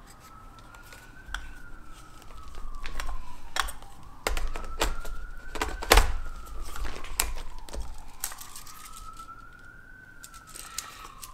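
A siren wailing, its pitch rising and falling slowly, over sharp clicks and knocks of a lens being handled and fitted onto a Sony A6600 camera body; the loudest knock comes about six seconds in.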